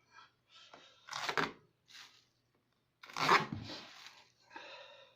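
Packing tape being pulled and torn off a cardboard box, in several rasping rips with pauses between, the loudest about three seconds in.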